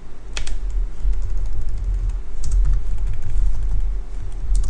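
Typing on a computer keyboard: a few scattered key clicks over a low steady hum.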